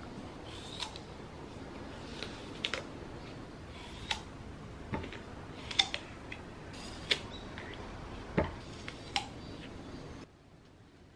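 Crisp bites and chewing of a green apple close to the microphone, with a sharp crunch about every second. The crunching stops about ten seconds in.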